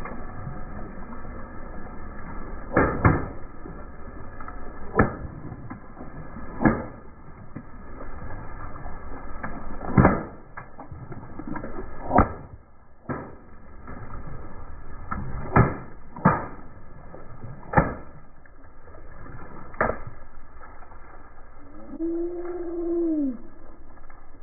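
Balloons bursting under a slowly rolling car tyre: about ten sharp pops one after another at uneven gaps, over a steady low background. Near the end comes a short squeak that rises and falls in pitch.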